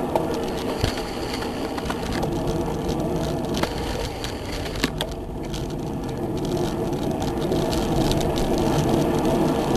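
Wind and road noise on a camera mounted on a moving bicycle: a steady rumble with scattered sharp clicks and rattles.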